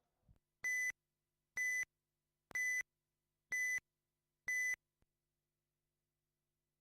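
Race start countdown from an RC racing timing system: five identical short, high electronic beeps about a second apart, counting down to the start of the race.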